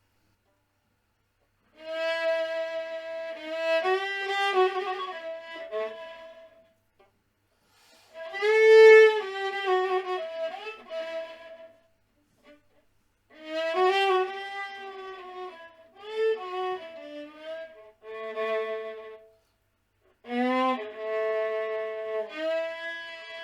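Instrumental music: a solo melody played in short phrases, often two notes sounding together, separated by brief pauses. It starts after about two seconds of silence.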